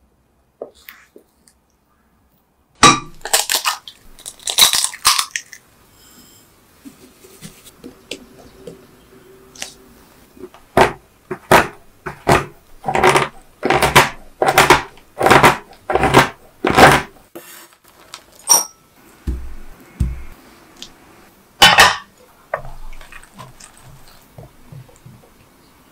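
Kitchen knife chopping a bar of dark chocolate on a cutting board: a run of about a dozen sharp chops, roughly one and a half a second, with scattered crunchy clicks and knocks before and after.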